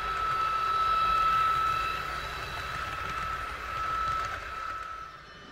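Model ICE 4 train running past on the model railway track: a steady high whine over a low rolling rumble. It swells twice as the train passes and fades away near the end.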